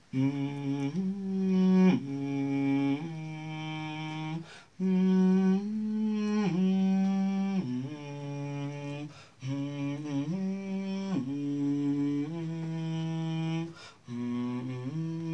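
Men's voices humming a slow tune in harmony, each chord held about a second before the voices move together to the next.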